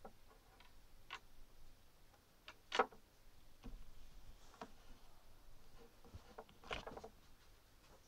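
A few faint, scattered clicks and light knocks, the sharpest about three seconds in and another near seven seconds.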